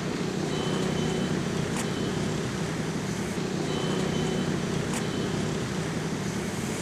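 Steady low hum of road traffic, with two faint clicks about two and five seconds in.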